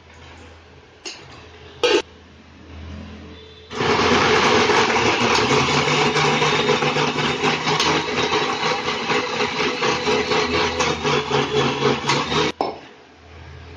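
Electric mixer grinder with a stainless-steel jar, held down by hand, running at full speed to grind a wet paste: it starts about four seconds in, runs steadily with a fine rattle, and cuts off suddenly near the end. Before it starts there are a few light clicks and one sharp knock as the jar is handled on the base.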